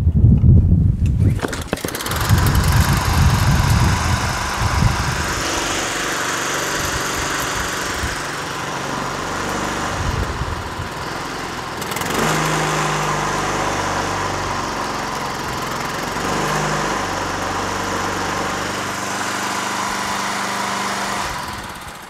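Honda Harmony II HRT216 walk-behind mower's single-cylinder engine starting after low thumping in the first second or so, catching about two seconds in and running steadily. Its pitch steps up about halfway through, and the engine stops just before the end.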